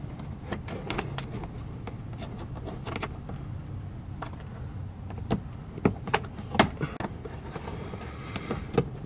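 Scattered light clicks and taps of a plastic underbody splash shield being handled and pushed into place, a few sharper snaps in the middle, over a steady low hum.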